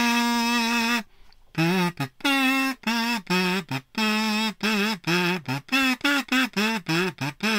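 A man's voice making a string of high Bruce Lee–style fighting cries: one long held cry, a short pause about a second in, then many short yelps, some with a wavering pitch.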